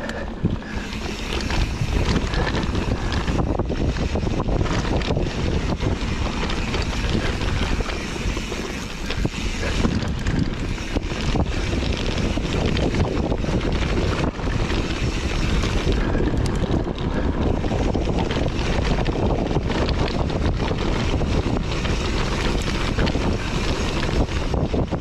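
Mountain bike riding a rough dirt trail, with wind rushing over the microphone and a steady run of rattles and knocks from the bike over the ground.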